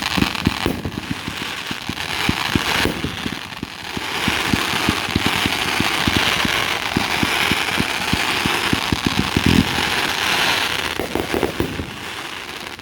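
Fireworks display going off in a dense, rapid run of bangs and pops, with loud continuous crackling strongest through the middle that fades near the end.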